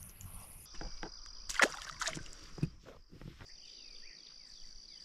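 Insects, crickets by the sound of it, trilling steadily, with a few sharp clicks and knocks between about one and a half and three seconds in.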